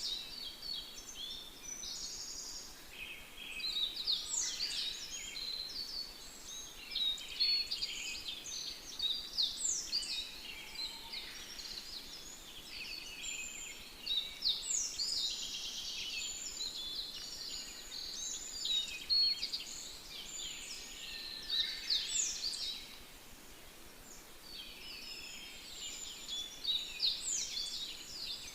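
Many birds chirping and calling at once: a dense chorus of short, high notes, many of them falling quickly in pitch, with a quieter spell about two-thirds of the way through.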